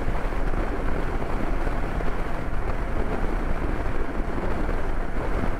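Steady rush of wind and road noise while riding a motorcycle at speed, the wind buffeting the microphone.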